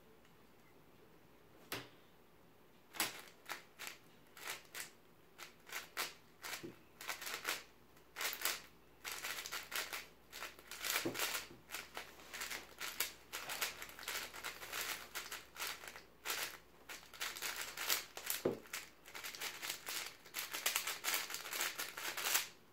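WuQue 4x4 plastic speed cube being solved: its layers turn in rapid runs of clicking and clacking. After a quiet first couple of seconds and a single click, the turning grows denser and nearly continuous from about nine seconds in.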